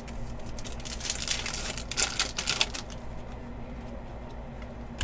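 Trading cards handled and flipped through by hand: a quick run of small clicks and rustles of card stock starting about a second in and lasting under two seconds, over a low steady hum.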